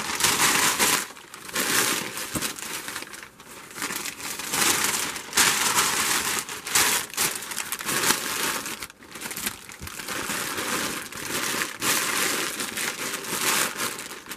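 Tissue paper and plastic air-pillow packing being crumpled and pressed down into a cardboard box: loud, irregular crinkling and rustling that comes in uneven bursts with short pauses.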